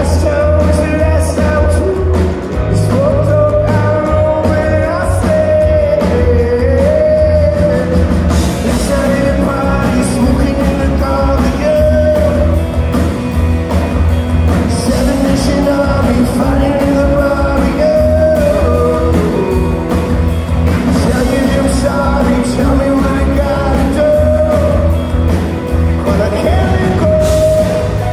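Live rock band playing: a male lead voice singing over electric guitars, bass guitar and a steady drum beat, loud and unbroken throughout.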